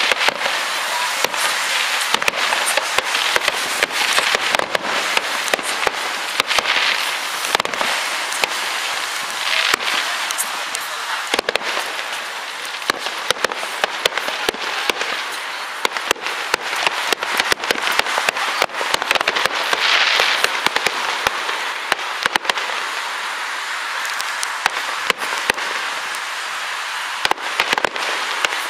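Fireworks going off: a dense, unbroken run of sharp pops and crackles, swelling into louder crackling stretches several times.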